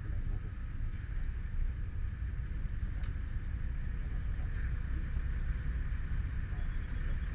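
Muffled, steady low rumble of a Yamaha motorcycle running at low speed in traffic, as heard through an action camera's poor built-in microphone.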